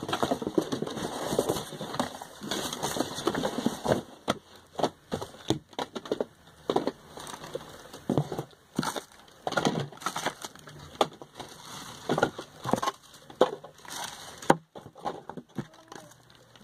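Plastic bags and product packaging crinkling and rustling as items are handled and moved, with scattered sharp clicks and knocks. The crackling is densest in the first few seconds and turns into sparser clicks after.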